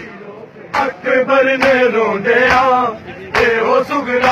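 Men chanting a Punjabi noha together in a mourning procession, with sharp hand-on-chest slaps of matam keeping time about once a second. The singing comes in about a second in.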